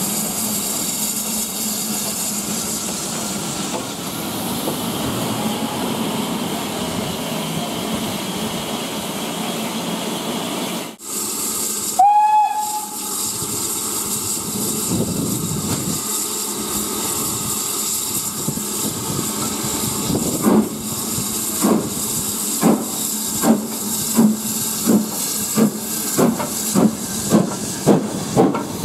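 BR 9F 2-10-0 steam locomotive, a two-cylinder engine: a steady hiss of steam, a short whistle about twelve seconds in, then the engine starts away with exhaust beats that quicken to about two a second.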